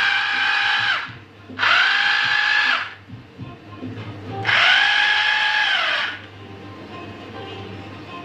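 Bosch GBH 200 corded rotary hammer drill run free in short trigger pulls. The motor whine is going at the start and winds down about a second in, then spins up and winds down twice more, each run a second or so long.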